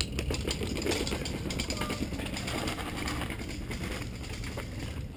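Mountain bike clattering and rattling as it rides down a rough trail, with many quick ticks over a steady low rumble.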